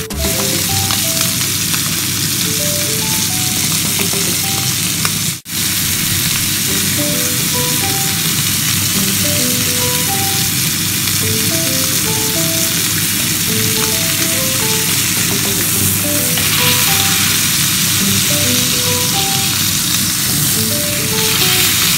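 Beef steaks sizzling in butter in a ridged grill pan, a steady dense hiss, with a light melody of short notes playing under it. The sound drops out for a split second about five seconds in.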